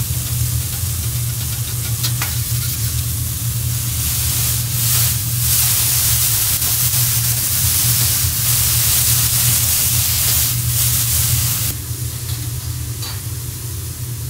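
Bean sprouts sizzling on a hot teppanyaki steel griddle as they are stir-fried. The sizzle grows louder about four seconds in and drops off sharply near the end, over a steady low hum, with a few light clicks.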